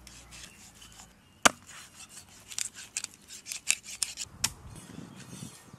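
Large knife cutting through a whole seer fish on a wooden block, with scraping, crackling strokes as the blade works through skin and flesh. A sharp knock comes about a second and a half in and another near the end.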